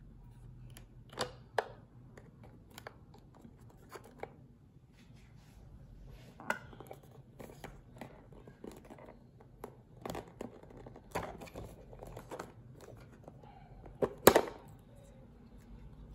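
Hands handling a GoPro HERO7 White camera and its cardboard-and-plastic packaging: scattered light clicks and rustles. A sharp double click comes about fourteen seconds in, as the camera is unclipped from its plastic mount.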